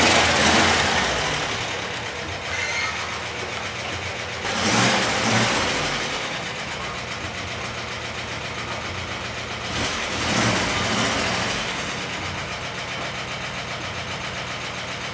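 Air-cooled flat-four engine of an old Volkswagen Beetle running at low speed as the car creeps forward. The engine picks up briefly three times, at the start, about five seconds in and about ten seconds in, then settles to a steady idle.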